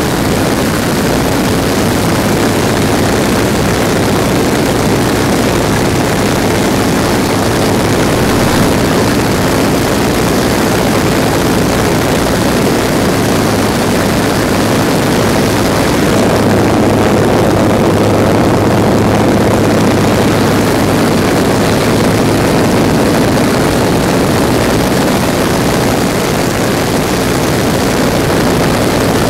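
Steady, loud drone of a de Havilland DHC-2 Beaver floatplane's engine and propeller in cruise, heard from inside the cabin.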